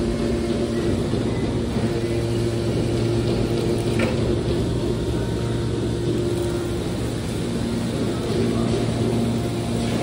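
Hydraulic scrap metal baler running with a steady low hum from its power unit while the ejection ram pushes a compressed bale of metal shavings out of the chamber. There is one short sharp sound about four seconds in.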